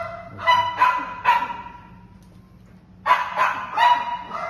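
A dog barking in two quick runs of three short, high-pitched barks: one about half a second in, and another from about three seconds in.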